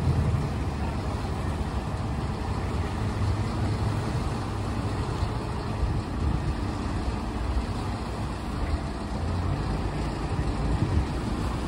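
Engine running steadily with a low rumble, over the wash of churning water.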